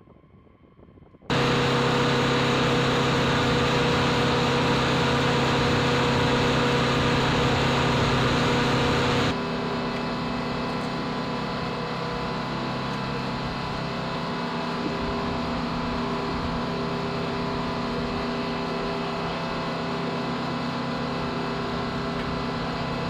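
Steady noise of aircraft turbine machinery around a B-52 bomber, with a constant hum. It starts abruptly about a second in and drops slightly in level about nine seconds in.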